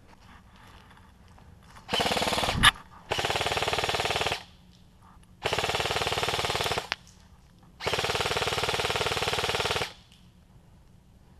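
G&G M4 airsoft electric rifle firing full-auto in four bursts of about one to two seconds each, a rapid even rattle of shots, with a sharp louder crack during the first burst.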